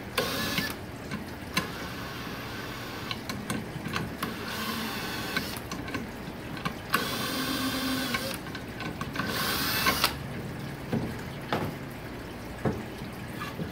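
Cordless drill spinning a reamer in the cast-aluminium bore of a 4L60E valve body, running in several short bursts with a motor whine. The reamer is kept turning forward while it is worked out of the tight bore.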